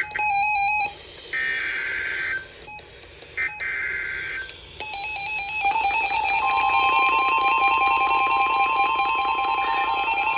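Emergency Alert System SAME header: harsh data bursts about a second long, repeated with short gaps. From about five seconds in comes a continuous alert sound with a repeating stepped pitch pattern, which a steady tone joins about a second and a half later, leading into the next warning.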